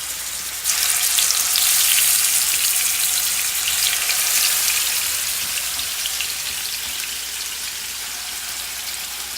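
Seasoned chicken thighs going into hot olive oil in a pan: the sizzle jumps up loud with crackles about a second in, then slowly eases off.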